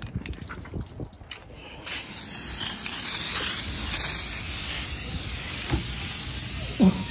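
Aerosol can of washable spray paint hissing steadily as it is sprayed onto a car's body, starting about two seconds in, with a few light clicks before it.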